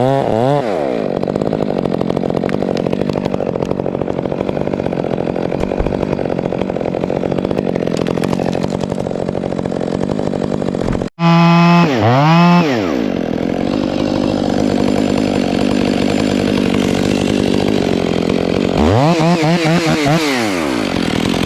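Stihl two-stroke chainsaw cutting through fir wood under steady full throttle, with the engine revving up and back down at the start, again just after a sudden break about halfway through, and in a run of throttle blips near the end.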